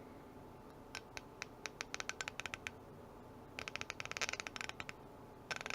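Britool Hallmark MR280 3/8-inch drive ratchet's 48-tooth pawl mechanism clicking as the ratchet is turned. There is an even run of clicks from about a second in, a quicker, denser run around the middle, and a short run near the end.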